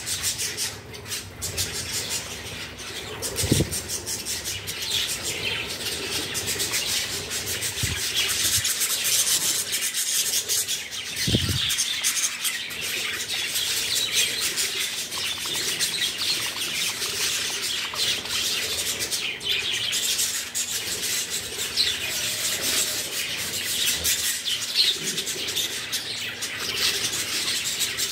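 Flock of budgerigars chattering and twittering continuously. A few soft wing flaps sound close by, the clearest about three seconds in and again about eleven seconds in.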